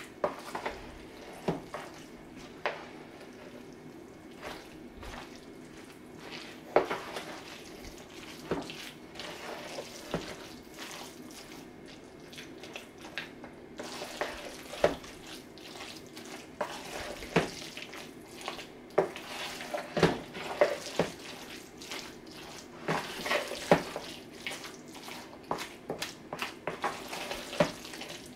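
Chicken salad being mixed in a plastic bowl: wet squishing of the mayonnaise-coated shredded chicken with irregular knocks and scrapes against the bowl, coming more often in the second half.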